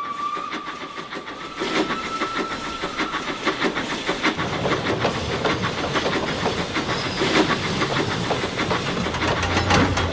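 Steam locomotive whistle blowing, fading out about three seconds in, followed by a steady rhythm of steam chuffs and hiss as the engine runs.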